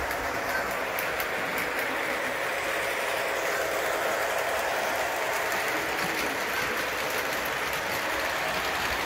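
Model train running on the layout's track: a steady whir of the locomotive's motor and gears and its wheels rolling on the rails, with faint clicks.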